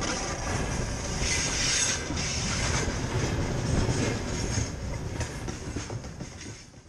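Russian Railways passenger train passing on the track, a steady rumble of wheels and coaches that fades out near the end.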